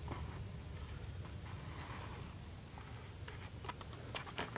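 Insects droning on one steady, high, unbroken tone, with a few faint clicks near the end.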